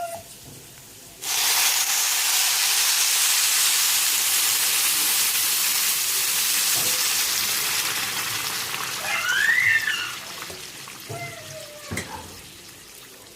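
Hot water poured into a pot of oil-toasted rice and vermicelli, setting off a loud hiss and sizzle that starts suddenly about a second in and dies away over several seconds as the water boils up.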